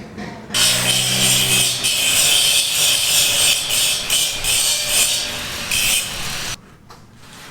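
A power tool cutting for about six seconds, starting and stopping abruptly, with a hum of the motor at the start under a loud, hissing cut.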